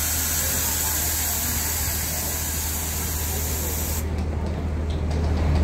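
Steady hiss of compressed air venting from a parked double-decker tour bus, cutting off suddenly about four seconds in, over the low hum of the bus's idling diesel engine.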